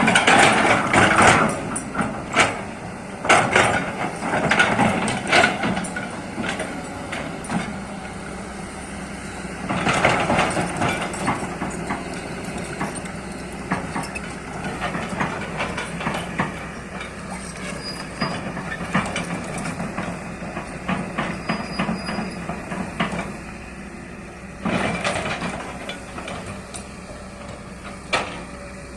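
Kobelco excavator at work: its engine runs steadily while the machine gives off irregular sharp knocks and clanks, with louder spells in the first few seconds, about ten seconds in, and around twenty-five seconds.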